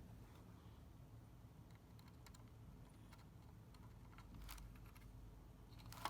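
Faint clicks and taps of an SSD card being handled and fitted into its slot on a motherboard, with a sharper click near the end.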